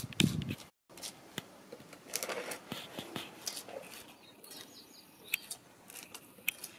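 Plastic spatula scraping and tapping on a concrete floor as resin mortar is spread and smoothed over cracks: scattered short scrapes and clicks.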